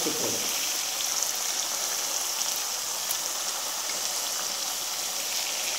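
Urad dal vadas sizzling steadily as they deep-fry in hot coconut oil.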